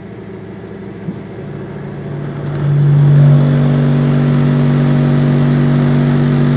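Subwoofer driven by an Audiopipe APSM-1500 amplifier playing a steady 49 Hz test tone, the vehicle's peak frequency. It swells in as the amp is brought up and is held loud and steady from about three seconds in, at roughly 1,100 watts into a load near 1 ohm during a clamp test.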